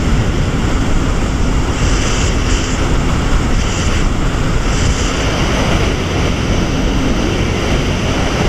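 Jet ski running at speed: the steady drone of the engine mixed with the rush of water and spray, with wind buffeting the microphone.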